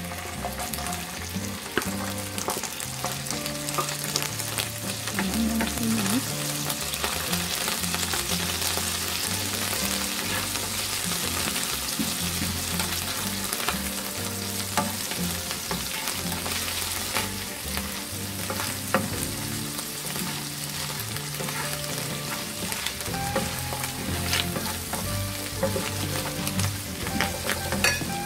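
Flaked tuna, garlic and onion sizzling steadily in a hot nonstick frying pan while a wooden spatula stirs and scrapes through it, with scattered clicks of the spatula against the pan.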